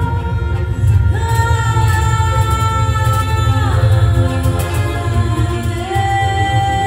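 Live folk-band music: a woman sings long held notes, sliding down to a new pitch about halfway through and again near the end, accompanied by violin and a second bowed string instrument over a steady low bass.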